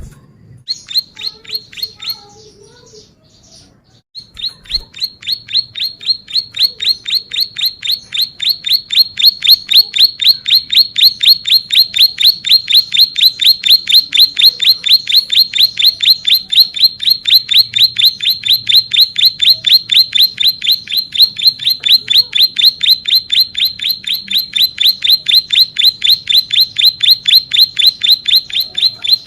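Ciblek sawah, a prinia, singing loudly: a short burst of sharp, evenly spaced chirping notes about a second in, a brief pause, then a long unbroken, evenly paced string of the same notes, several a second, from about four seconds in.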